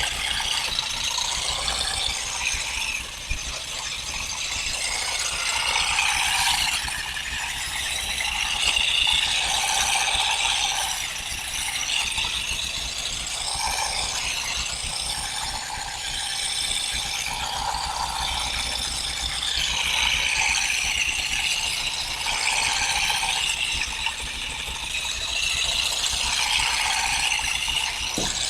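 Olive harvesting: a dense, continuous clatter of olives and leafy olive branches being stripped, rising and falling in waves every few seconds.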